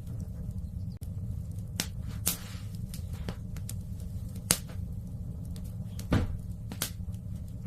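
Wood fire in a fireplace crackling: about five sharp pops spread irregularly over a steady low rumble, one pop followed by a brief hiss.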